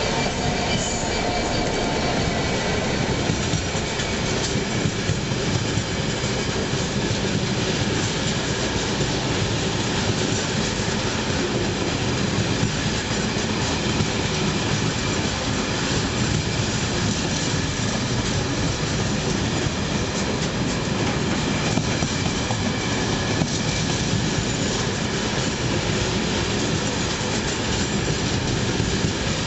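A long rake of loaded engineering ballast wagons rolling past behind a Class 66 diesel locomotive, its wheels running steadily on the rails. A few faint steady tones fade out in the first second as the locomotive moves away.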